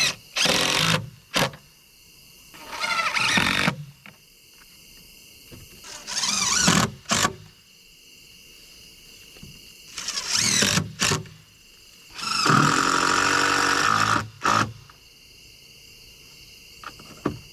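Cordless drill driving screws into plywood: five runs of one to two seconds, most followed by a short blip of the trigger, the motor's pitch rising and falling as each screw goes in.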